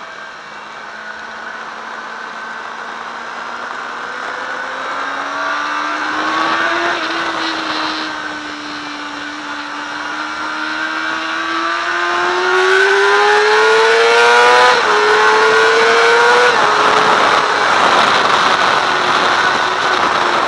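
Sport motorcycle engine pulling hard on a race track, heard from a camera mounted on the bike: the engine note holds steady, then climbs through the revs, with two quick drops in pitch at upshifts in the second half. Wind rush on the microphone grows louder as speed builds.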